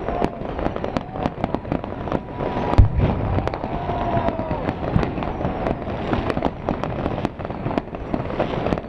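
Fireworks going off in a dense, irregular stream of bangs and crackles, with one heavy boom a little under three seconds in.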